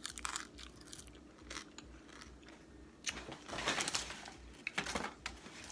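Close-up chewing and crunching of boiled crawfish, shell and head included, with sharp crackling bites, denser about halfway through.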